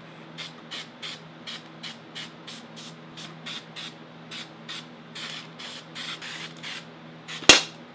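Aerosol can of weld-through primer spraying in short hisses, roughly three a second, then a few longer bursts. A single loud, sharp knock near the end.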